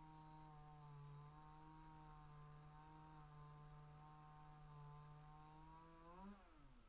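Faint two-stroke chainsaw engine running at a steady speed, then briefly revving about six seconds in and winding down to a stop as it is shut off near the end.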